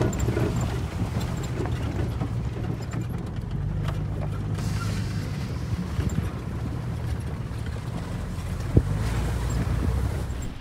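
Jeep Wrangler TJ driving over a rough grassy track, heard from inside the open cab as a steady low engine and road rumble with wind on the microphone. One sharp knock about nine seconds in.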